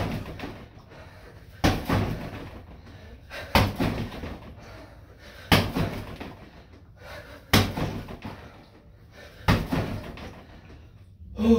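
Kicks landing on a free-standing BOB body-opponent dummy: a heavy thud with a short ringing tail about every two seconds, over a faint low hum.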